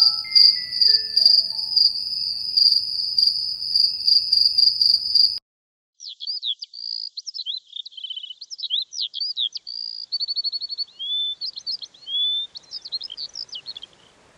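Crickets chirping in a steady pulsing trill, with a few soft melodic notes over it at first. The trill cuts off suddenly about five seconds in, and after a short gap a songbird sings a varied run of whistles and trills.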